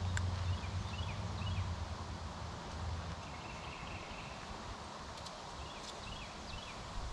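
Small birds chirping in short calls, in two clusters: one near the start and one about two-thirds of the way through. Under them runs a low rumble that fades over the first few seconds, and a few faint clicks.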